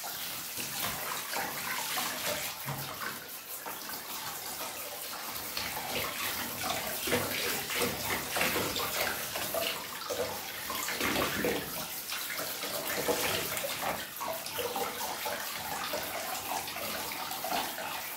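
Water spraying from a handheld shower head and splashing onto a metal front plate held over a bathtub: a steady hiss that rises and falls as the spray moves across the plate.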